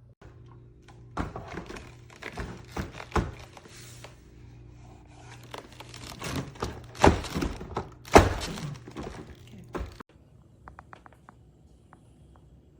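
A series of thunks and knocks over a faint steady hum, the loudest about seven and eight seconds in, stopping abruptly about ten seconds in.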